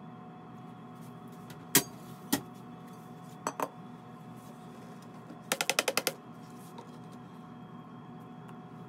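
Metal pan and scoop clinking and knocking against a stainless-steel counter and a container while dry glaze powder is weighed out: two single knocks, a quick double, then a rapid run of about eight taps. A steady room hum runs underneath.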